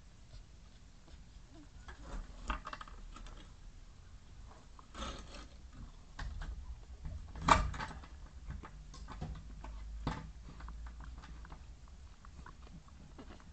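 Mother dog shifting and licking her newborn puppies on a soft dog bed: scattered faint rustling and wet clicks, with a louder bump about seven and a half seconds in.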